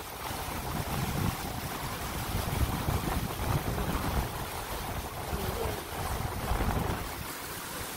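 Car driving through a flooded street, its tyres sloshing and swishing through shallow floodwater, with wind buffeting the microphone as a low, uneven rumble.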